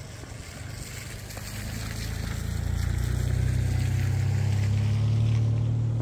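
A motor vehicle's engine hum, low and steady, growing louder over the first three seconds and staying loud to the end.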